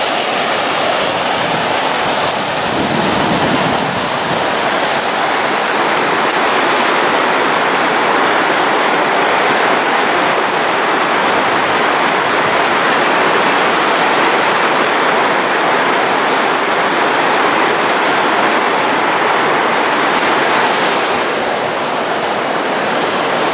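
Fast-running floodwater rushing over a culvert, a loud steady rush of turbulent water.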